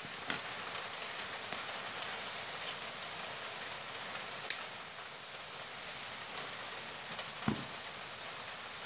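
Side cutters snipping at a small DC motor's terminal lead: one sharp snip about halfway through, over a steady hiss with light handling clicks. A duller knock near the end as the cutters are moved away.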